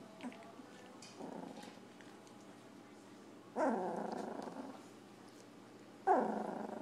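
Two-week-old golden retriever puppies making small grunts and growls as they wrestle and mouth each other. Two louder cries, about three and a half and six seconds in, each start suddenly and fall in pitch as they fade.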